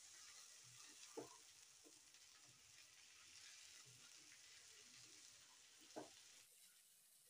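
Faint sizzling of sliced ivy gourd sautéing in oil in a nonstick pan, stirred with a spatula, with soft spatula knocks against the pan about one second in and about six seconds in. The sizzle fades out near the end.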